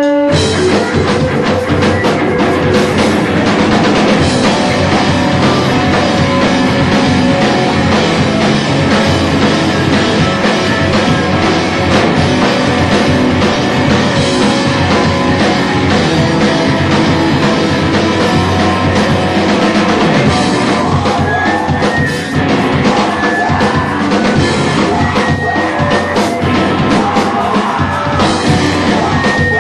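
Live rock band playing loud: electric guitar, bass and drum kit come in together all at once at the start and keep going hard.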